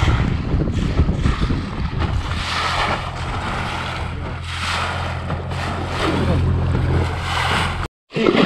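Wind buffeting the microphone over choppy water slapping a small boat, in gusts that swell and fade, with a steady low hum underneath. The sound drops out completely for a moment near the end.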